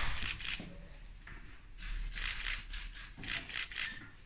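Camera shutters clicking in rapid bursts, four or five quick volleys about a second apart, after a sharp knock right at the start.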